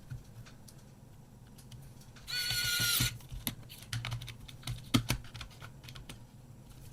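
Small clicks and taps of a plastic-and-metal Kodak Ektar H35N half-frame camera body and its parts being handled during reassembly. A brief scraping squeak comes about two seconds in, followed by a run of irregular clicks.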